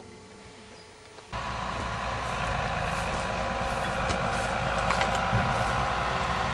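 A motor vehicle engine comes in abruptly about a second in and then runs steadily with a deep rumble.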